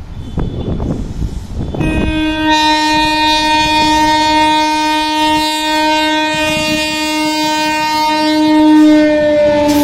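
Air horn of an Indian Railways WAP-4 electric locomotive sounding one long, steady blast that starts about two seconds in, over the rushing noise of the oncoming train. The horn's pitch dips slightly near the end.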